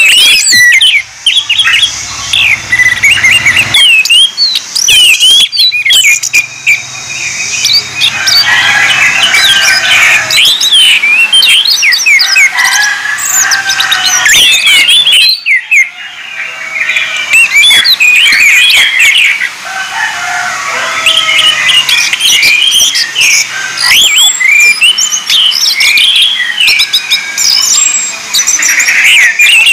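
Orange-headed thrushes singing: a loud, dense stream of rapid, varied whistled phrases, sweeps and twitters, with several birds' songs overlapping and only brief breaks.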